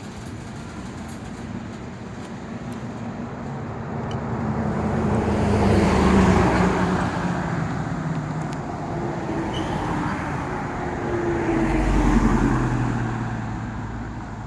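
Two road vehicles passing by one after the other, each swelling up and fading away with a falling pitch. The first peaks about six seconds in, the second about twelve.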